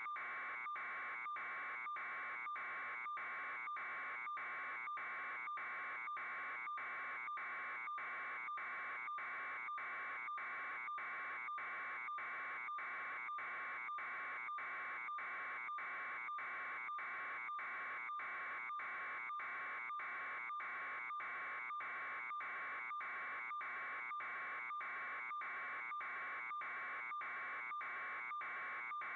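A steady buzzing tone that pulses evenly, about one and a half times a second, at an unchanging level throughout.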